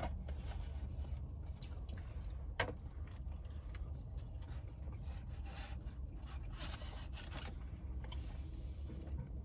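Eating noises: scraping and rustling as takeout food and its container are handled, with a sharp click about two and a half seconds in, over a low steady rumble.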